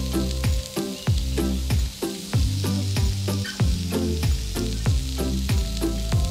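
Background music with a steady beat and bass, over the steady sizzle of pineapple wedges char-grilling on a hot grill plate.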